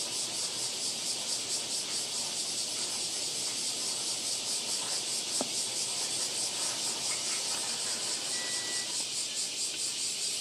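Cicadas shrilling in a steady, high-pitched, finely pulsing summer chorus, with a single sharp click about halfway through.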